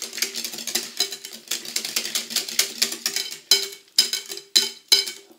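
Metal balloon whisk beating a runny egg, mascarpone and oil batter in a glass bowl, with quick rhythmic strokes clicking against the glass. The clicks get sharper and more spaced out in the second half.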